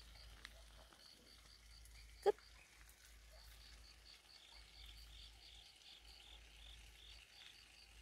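Crickets chirping faintly in a steady rhythm of high chirps, about four a second. A brief sharp sound comes about two seconds in.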